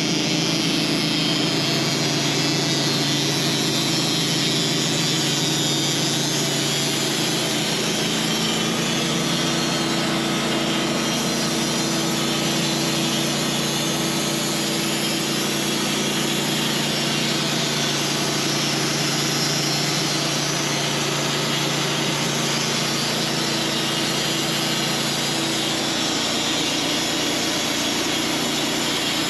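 Band sawmill running steadily under load as its blade saws through a honey locust log, the engine note shifting slightly about a quarter of the way in and again near the end.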